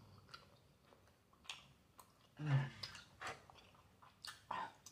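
A person chewing a mouthful of tteokbokki, Korean rice cakes in spicy sauce: soft, wet mouth clicks and smacks spaced irregularly, with a short hum of the voice about halfway through.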